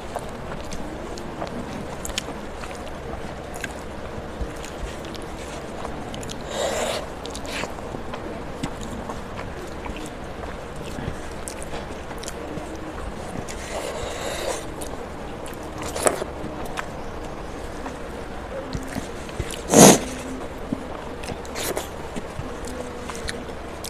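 Close-miked eating: chewing and wet mouth sounds as a woman eats rice by hand, with fingers mixing and scraping food across a steel plate. Small clicks and smacks throughout, and one sharper, louder sound late on.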